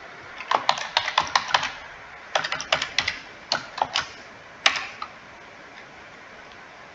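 Computer keyboard keys being pressed as a password is typed, a couple of quick runs of clicks, then one louder single key press about four and a half seconds in.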